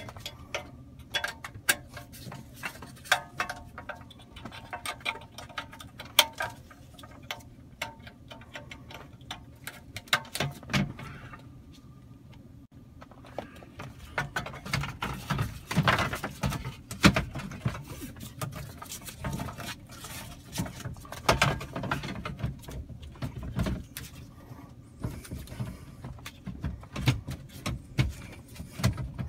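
Irregular clicks, knocks and rustles of plastic wiring-harness connectors being plugged into a car radio and the metal-cased radio being slid into the plastic dash opening, over a low steady hum.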